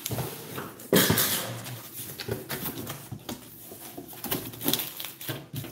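Cardboard shipping box being opened and its contents handled: flaps scraping and rustling, with the loudest scrape about a second in and smaller knocks and rustles after it.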